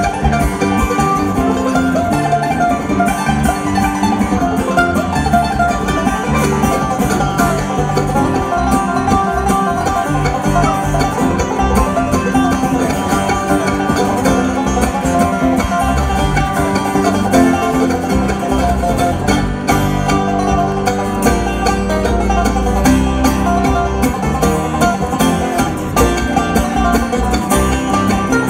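Bluegrass band playing live at a steady volume, with banjo, acoustic guitar, mandolin and electric bass.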